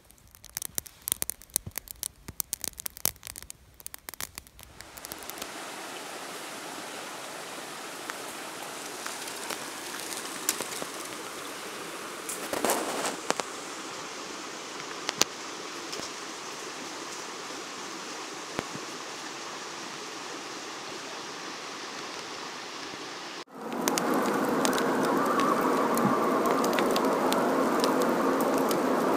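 Small wood fire crackling with many sharp pops for the first few seconds. It gives way to a steady hiss with an occasional click, and for the last several seconds a louder steady hiss, like rain.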